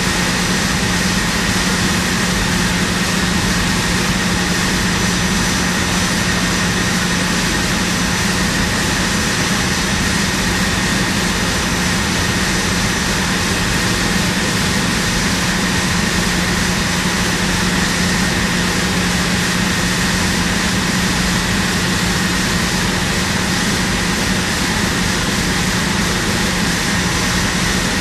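Steady drone of running plant machinery: an unchanging rush of noise with a constant low hum and a faint high whine over it.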